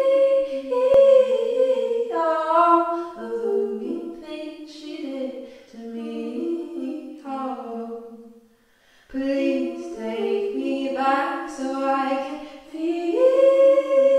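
Unaccompanied singing: a voice holding drawn-out sung notes that glide between pitches, with no instruments, and a short pause about eight and a half seconds in.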